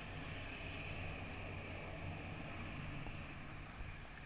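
Steady rush of wind and water aboard a Prindle 16 sailing catamaran under sail, with a low steady hum underneath.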